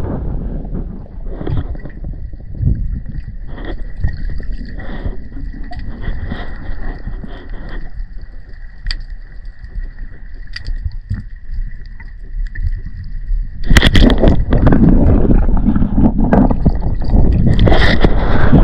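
Muffled underwater sound picked up by a diver's action camera: a low rumble with scattered clicks over a faint steady high tone. About fourteen seconds in it gives way to a much louder rushing noise as the camera moves quickly through the water.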